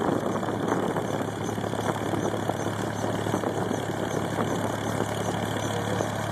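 Bell 47-type helicopter's piston engine idling steadily on the ground, its main rotor turning slowly.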